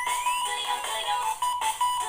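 Upbeat electronic music with quick synth notes, played back as an AAC file on a Nokia 3806 mobile phone. A rising synth sweep tops out about half a second in.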